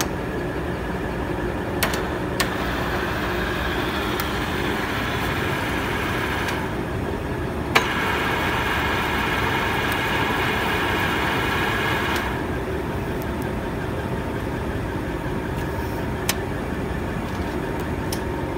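Poreba heavy-duty engine lathe running with a steady machine hum. A higher gear whine comes in twice, about four seconds each time, as the slides are driven. A few sharp clicks fall in between, one as the second whine starts.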